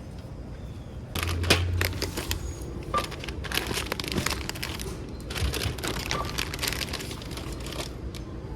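Crinkling and rustling of plastic snack packaging being handled, in irregular bursts starting about a second in and easing off near the end.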